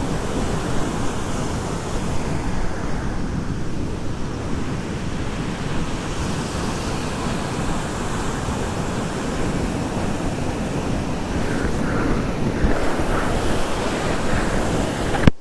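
Tall waterfall pouring into a plunge pool: a steady, unbroken rush of falling and splashing water. It cuts off abruptly near the end.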